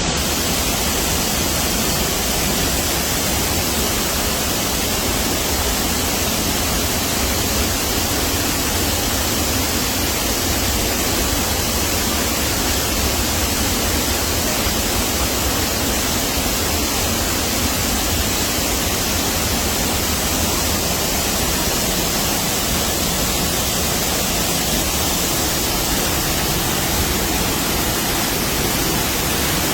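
Waterfall: falling water giving a loud, steady rushing noise with no let-up.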